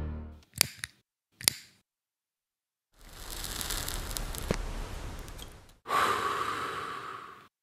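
Two sharp clicks about a second apart, then a long drag on a cigarette and a heavy exhaled breath, like a sigh.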